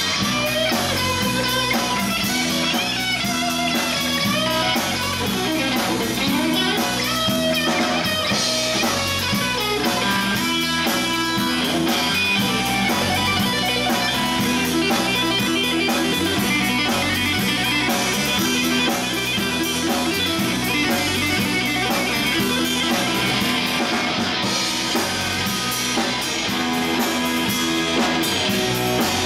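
Live band playing: two amplified electric guitars over a drum kit.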